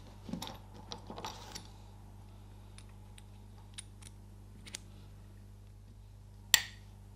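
Small steel tool bits clicking and clinking as one is taken from an aluminium holder block and fitted into a watchmaker's tube-removal handle. A cluster of light clicks comes in the first second and a half, then scattered single ticks, and one sharper click near the end.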